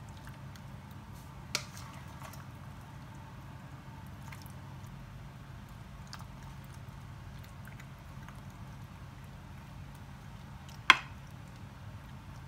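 A metal spoon spreading béchamel-coated penne in a glass baking dish: soft wet squishing with scattered light clicks, a sharper clink about a second and a half in, and a loud clink near the end as the spoon strikes the dish. A steady low hum runs underneath.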